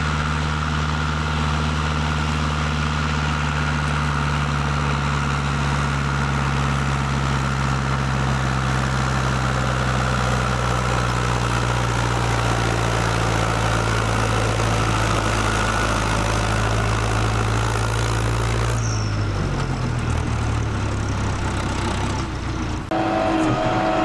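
International Harvester 744 tractor's four-cylinder diesel engine running steadily while pulling a manure spreader. About 19 s in the engine note drops. Near the end a different engine with a wavering whine takes over.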